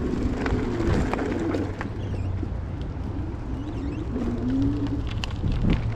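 Electric e-bike hub motor whining under power, its pitch rising and falling with speed, over steady riding rumble with a few sharp knocks.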